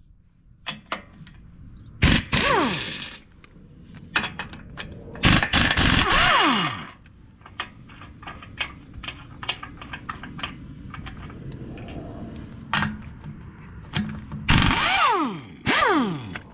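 Power impact wrench run in three bursts while loosening bolts, each burst ending in a falling whine as the motor winds down. Metal clinks and knocks of tools and parts fall in between.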